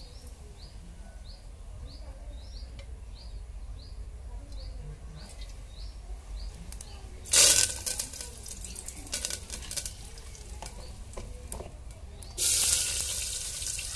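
Chopped onions dropped into hot oil in an aluminium pot over a wood fire, a loud sizzle starting near the end and slowly easing off. Before it, a bird calls over and over with short chirps about twice a second, and a brief loud hiss about seven seconds in is followed by scattered crackles.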